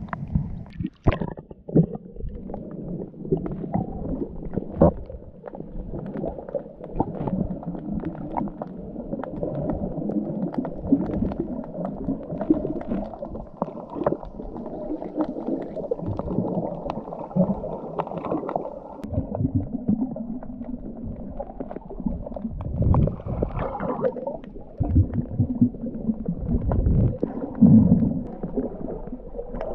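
Muffled underwater water noise from a camera held below the surface: continuous low rumbling and gurgling with scattered small clicks. Louder low rumbles come about two-thirds of the way through and again near the end.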